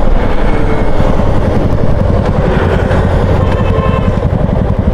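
Motorcycle engine running steadily under way, a constant low drone mixed with road noise.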